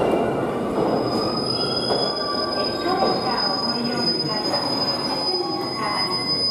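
JR East 701 series electric train arriving and braking at the platform: a dense rumble of wheels on rail with scattered squeals, and a high, steady squeal that sets in about a second in and holds as the train slows to a stop.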